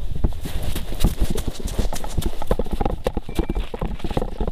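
Running footsteps on frozen ground and snow: a rapid, irregular patter of footfalls.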